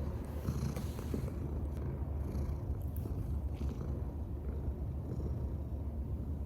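Domestic cat purring steadily and close up, a continuous low rumble.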